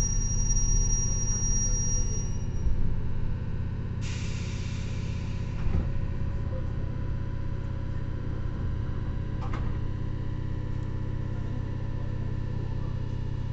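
Inside a JR 115 series electric train car, a high-pitched brake squeal fades out as the train comes to a standstill. About four seconds in comes a short hiss of released air, with a couple of faint clicks after it, over a steady low hum.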